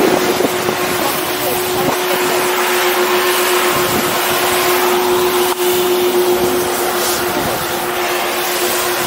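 Wind rushing over the microphone on a moving chairlift: a loud, steady rush with a constant hum underneath.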